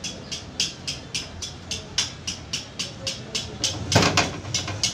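Rapid, regular strokes of hand-tool work, nearly four a second, with one louder knock about four seconds in.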